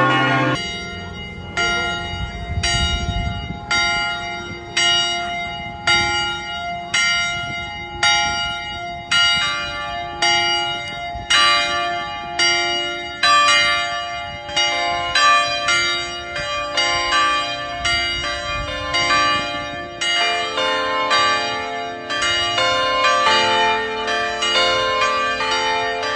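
A set of church bells ringing in sequence, struck about once a second, each ringing on into the next. The order of pitches shifts as the sequence goes on.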